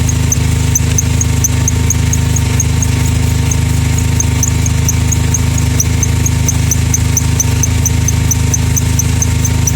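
Air-conditioner compressor running with a steady low hum, over which a short high-pitched squeak repeats about three times a second: the abnormal noise coming from the compressor.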